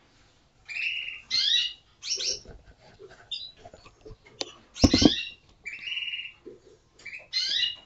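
Caged canaries chirping and trilling, with short high calls repeating, and one louder sharp sound about five seconds in.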